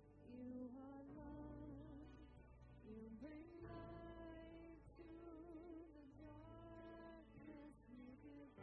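Worship band playing a song, heard faintly: a young female singer sings the melody over strummed acoustic guitar.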